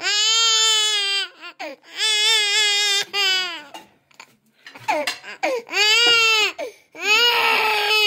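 A young child crying hard: four long wails of about a second each, with short sobbing catches in between.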